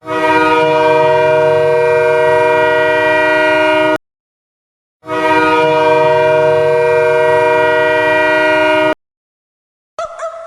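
Sudbury Wolves arena goal horn, an air horn sounding a steady chord of several tones in two long blasts of about four seconds each, a second apart, signalling a home-team goal. Music starts just before the end.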